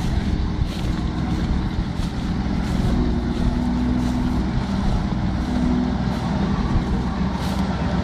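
Schlüter Super 1500 TVL tractor's diesel engine running steadily under load as it pulls a plough, drawing closer.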